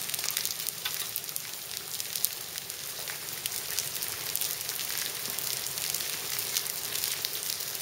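Hailstones 2 to 3 cm across falling with rain on wet terracotta tiles and garden soil: a steady hiss dotted with many sharp, irregular clicks of stones striking.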